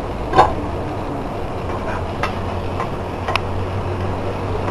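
A spatula stirring steamed tindora (ivy gourd) in a frying pan, clicking against the pan a few times; the loudest click comes about half a second in. A steady low hum runs underneath.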